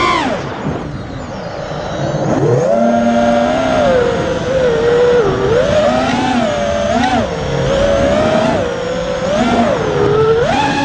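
FPV racing quadcopter's brushless motors (T-Motor F60 III) whining under changing throttle. The pitch drops sharply right at the start, stays low for a moment, climbs again about two seconds in, then swings up and down with repeated throttle blips.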